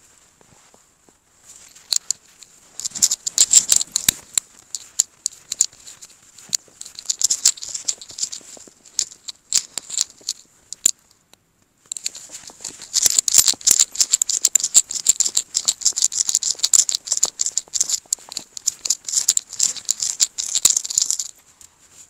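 Footsteps crunching through fresh, deep snow: a dense run of crisp crackles. It breaks off about eleven seconds in, starts again a second later and stops near the end.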